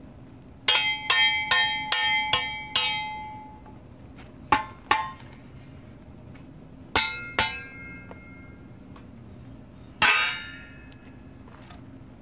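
Steel angle iron ringing as it is struck: a quick run of six sharp clangs, then two pairs and one last clang, each leaving a short metallic ring.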